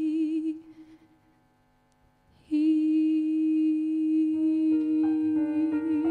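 Female singer's voice in a slow ballad: a note with vibrato dies away about half a second in, a moment of near silence follows, then she holds one long sustained note from about two and a half seconds in. Piano chords come in under the held note about two seconds later, and the note turns to vibrato near the end.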